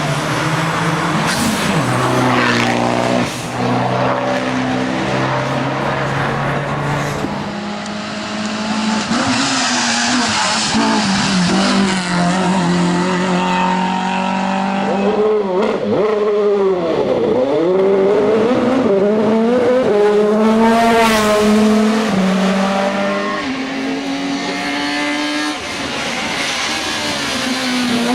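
Hill-climb race cars at full throttle, the engine pitch rising through each gear and dropping at every upshift. Near the middle a car passes close by, its engine pitch swooping down as it goes past.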